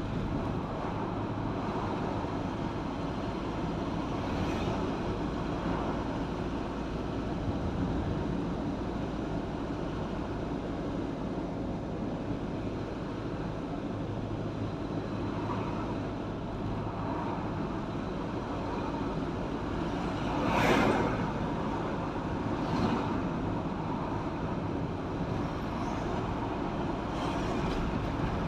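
Steady road and engine noise of a vehicle driving along a road, with a low hum throughout. About two-thirds of the way through, a louder whoosh swells and fades, as of another vehicle passing close by.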